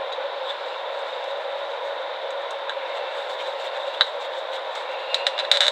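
Steady background hiss, with a sharp click about four seconds in and a quick run of small clicks and taps near the end, from handling the wires and a plastic lamp holder.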